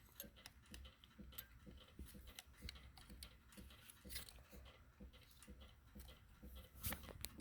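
Faint scattered clicks and rustling from a vintage Minolta SR-1S 35mm film camera being handled, with a couple of sharper clicks near the end.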